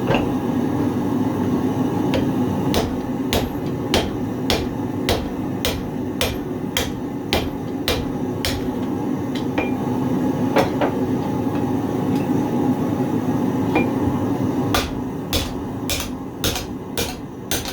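Hand hammer striking hot 1095 carbon steel on an anvil, a radiused-face hammer drawing and bending a thick cleaver blank. A steady run of blows at a little under two a second, a pause with a single blow, then a faster run of blows near the end, over a steady low drone.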